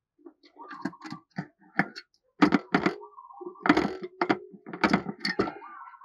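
Irregular sharp taps and knocks, about a dozen and some of them loud, from a caged spotted dove moving about its cage, its feet striking the perch and cage fittings.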